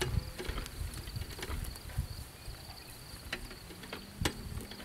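Hand-truck telescope buggy loaded with a telescope mount being pushed over rough grassland: irregular knocks, rattles and thumps from the wheels and the load, mixed with footsteps. A steady high insect chirring runs underneath.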